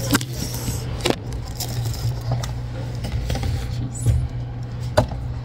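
A few sharp knocks, about three, as a phone camera is handled and set down on a table and hair-dye supplies are moved about, over a steady low hum.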